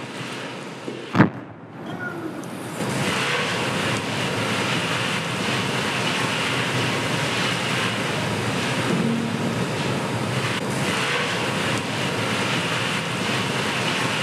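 Steel drum imploding with a single loud bang about a second in, as the steam sealed inside condenses and the vacuum crushes it, there being no vacuum breaker fitted. A steady hiss of water spray on the drum follows, growing louder a few seconds in.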